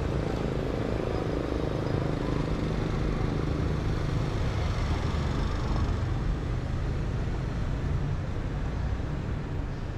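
A motor vehicle running, heard as a steady low rumble with a faint engine hum.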